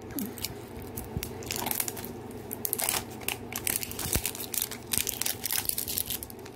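Thin plastic wrapper crinkling and tearing as it is peeled off a 5 Surprise Mini Brands capsule ball: a run of irregular crackles.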